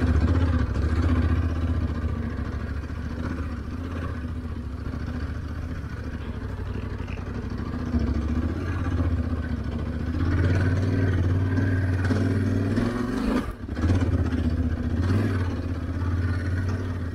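Yamaha Ténéré 700's parallel-twin engine running under way, its note rising and easing with the throttle and cutting out briefly about thirteen seconds in.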